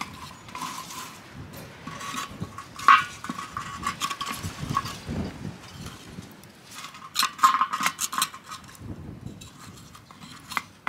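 Lumps of ashed charcoal clinking and crunching and wooden slats knocking and scraping in a metal fire bowl as clay spindle whorls are picked up with the slats and set down on the embers. A run of clinks and knocks, loudest about three seconds in and again around seven to eight seconds in.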